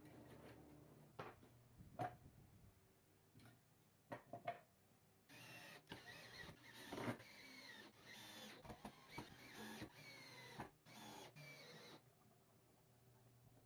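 A few scattered clicks and knocks of parts being handled. Then an electric drill runs in several short bursts of a few seconds each, its pitch gliding up and down as the trigger is worked.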